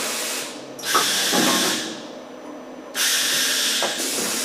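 Vertical CNC machining center going through an automatic tool change: three hissing blasts of compressed air, with a clunk from the tool carousel and spindle about a second in.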